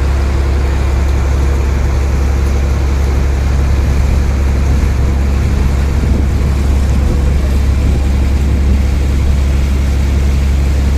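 A vehicle's engine running in a loud, steady low drone that does not change in pitch or level.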